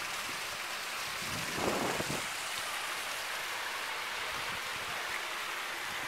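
Water from a boulder waterfall splashing steadily into a swimming pool, a constant rushing hiss that swells briefly about a second and a half in.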